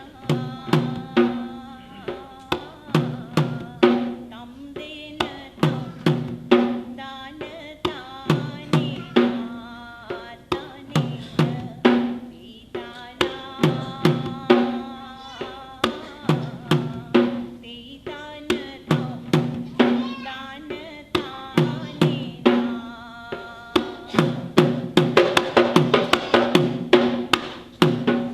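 Traditional Sri Lankan drums played live in a steady rhythmic pattern of sharp strokes, each leaving a ringing low tone. Near the end the strokes come much faster, in a dense roll.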